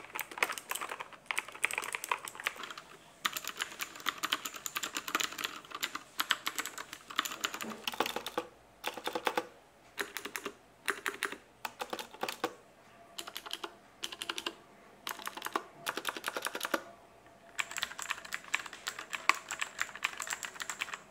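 Bursts of fast typing on mechanical keyboards with clicky blue switches, a Cherry MX Blue board and a Kailh Blue board, each burst a dense run of sharp clicks, stopping and starting several times.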